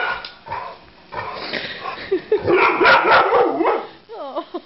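Dog barking and yipping in loud, rapid bursts, ending in a short wavering whine near the end.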